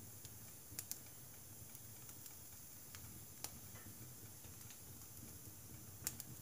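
Firewood burning in a wood stove, crackling faintly with sparse sharp pops: two about a second in, a couple around the middle, and the loudest pair near the end, over a steady low hum.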